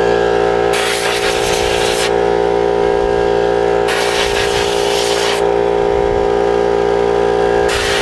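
Three hissing blasts of compressed air, each about a second and a half long, the last starting near the end, blowing dust out of the fins of a furnace blower's squirrel-cage wheel. An air compressor runs steadily underneath.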